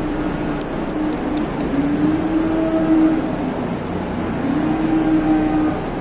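Cattle lowing in long drawn-out moos, several in a row, over the steady noise of barn fans. A few light clicks come about a second in.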